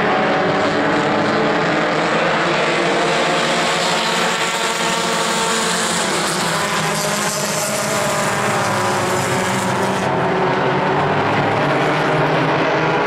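A pack of pure stock race cars running together on the oval, many engines blending into one steady drone of overlapping tones. The sound turns a little duller about ten seconds in.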